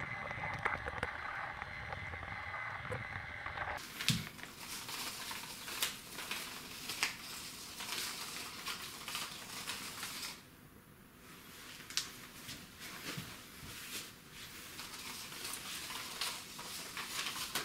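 A battery-powered Brio wooden toy train running along wooden track, its small motor giving a steady whine, for about four seconds. The sound then cuts off and gives way to scattered light clicks, taps and rustles.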